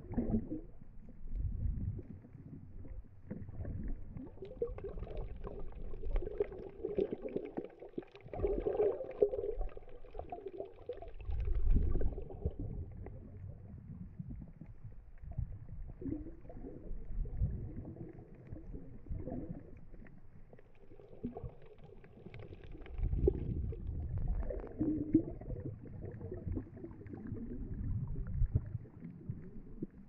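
Muffled underwater sound picked up by a submerged camera: low, irregular rumbling and gurgling of moving water, swelling and fading every few seconds.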